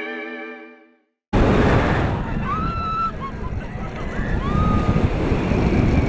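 An electric guitar chord rings and fades out to silence; then, about a second and a half in, a roller coaster's onride sound cuts in suddenly: wind rushing over the microphone and the deep rumble of the train, with a few short rising cries.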